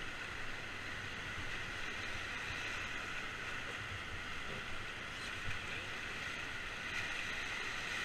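Whitewater river rapids rushing steadily around an inflatable raft.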